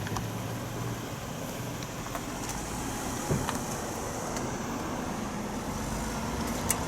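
Motor vehicle engine running steadily with road noise, with a couple of faint clicks.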